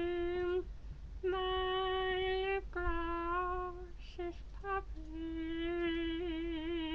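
A person humming long, steady notes on nearly the same pitch, in several held stretches with short breaks between them; the last note wavers near the end.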